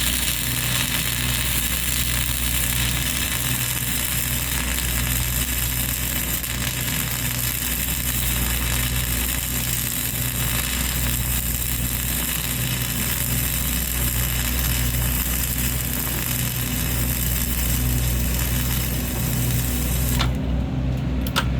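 Flux-core arc welding: the steady hiss of the arc as a weave bead is laid with self-shielded wire, cutting off suddenly about twenty seconds in. A steady engine hum runs underneath throughout.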